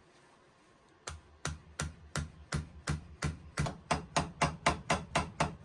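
Small hammer tapping on a pocket knife's blade pin held on a bench vise, peening the pin head to set it. The sharp taps start about a second in, come about three a second, then speed up to about four a second and grow louder.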